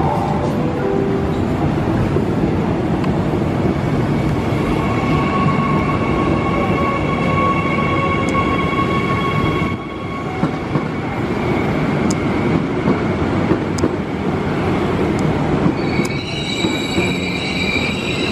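KRL KFW i9000 electric multiple unit rolling into the station past the platform, its steel wheels rumbling steadily on the rails with thin squealing tones over it. Sharper, higher metallic squealing sets in near the end.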